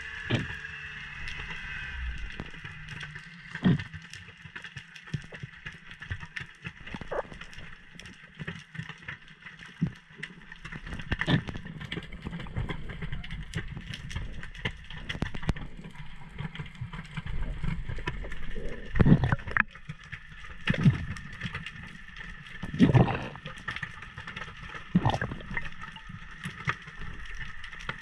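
Underwater noise picked up by a diving camera: a low rumble of moving water with many small clicks, and several louder knocks and thumps in the second half.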